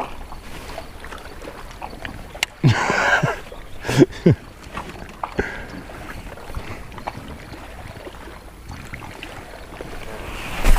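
Low, steady background sound aboard a small fishing boat on open water. About three seconds in there is a brief rushing noise, and about a second later come two sharp knocks.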